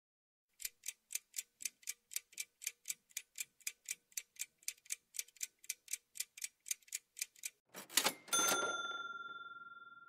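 Countdown timer sound effect: a clock ticking about four times a second for about seven seconds. Then comes a short burst of noise and a bright chime that rings and fades away, marking the answer reveal.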